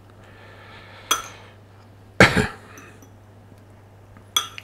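Metal fork clinking against a ceramic bowl while stirring diced bread in olive oil: one clink about a second in and a couple more near the end. About two seconds in, a short, loud, dull burst is the loudest sound.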